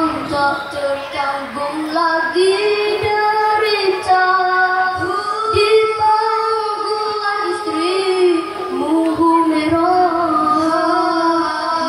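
A children's nasyid group singing a slow Malay Islamic song together, drawing out long held and gliding notes between lines of lyrics, amplified through stage loudspeakers.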